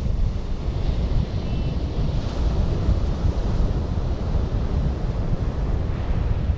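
Wind buffeting the microphone with a steady low rumble, over the wash of small waves breaking on a shingle beach.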